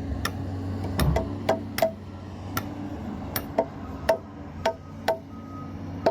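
Hammer strikes driving nails into wooden foundation forms: irregular sharp knocks with a short ring, about one or two a second. A steady low hum runs underneath.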